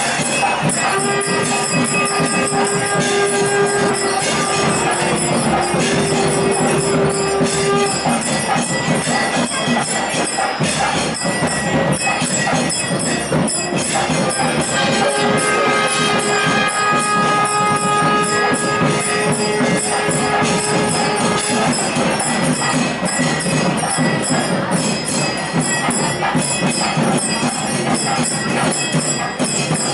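Festival music: dense, continuous percussion with long held melody notes in two stretches, one near the start and one in the middle.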